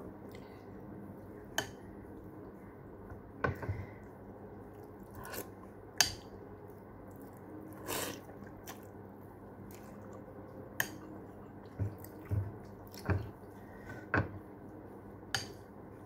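Someone eating instant noodles from a ceramic bowl with a metal fork: chewing and slurping, with scattered sharp clicks and taps of the fork against the bowl, the loudest about six seconds in, and a longer slurp about eight seconds in.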